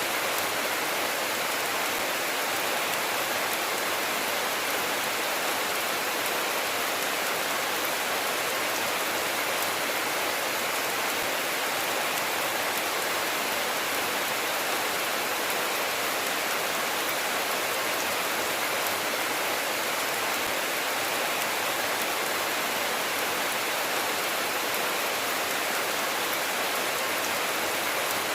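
Steady rainfall, a continuous even hiss of drops with no break or change in strength.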